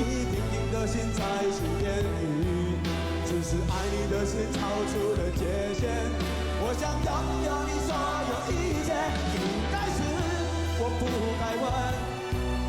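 A rock band playing live, a man singing over electric guitar, bass and drums.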